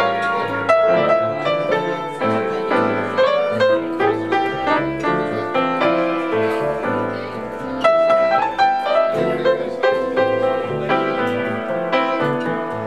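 Live jazz on an upright piano, the pianist playing a flowing line of chords and single notes, with a double bass walking underneath.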